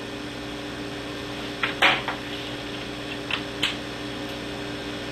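A handful of light clicks and clatters as a blown fuse is handled at a power supply's fuse holder, the loudest about two seconds in, over a steady electrical hum.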